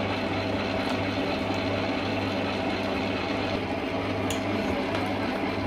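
Kenwood stand mixer's motor running steadily, its beater turning through thick sweet potato cake batter in the steel bowl.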